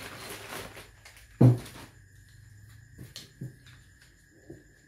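Plastic bag rustling as a MIG welding torch and its heavy cable are pulled out of the packaging, with a loud thump about a second and a half in and a few light clicks and knocks later as the torch is handled.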